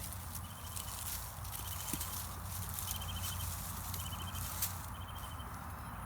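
Steel digging fork working garden soil: irregular crunching and scraping as the tines go under a potato plant and the dirt is lifted and sifted. Short trains of quick high chirps repeat several times in the background.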